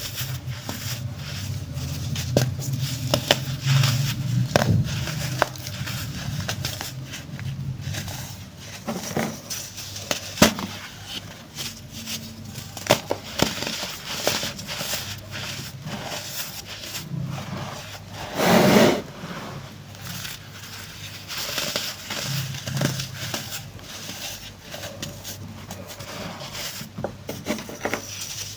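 Chunks of pressed baking soda crumbling and being crushed: a dense run of dry, irregular crackles and crunches, with one louder crunch about two-thirds of the way through.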